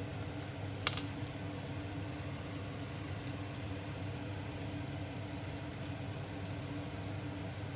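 Knife and metal tongs clinking lightly against a ceramic plate while a crispy potato waffle is cut and moved: one sharp click about a second in, then a few faint scattered ticks, over a steady low hum.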